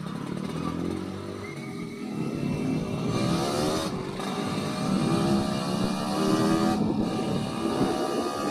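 Yamaha RX-King's single-cylinder two-stroke engine, fitted with an aftermarket under-slung exhaust, pulling the bike through the gears. The revs climb and drop back at shifts about four and seven seconds in.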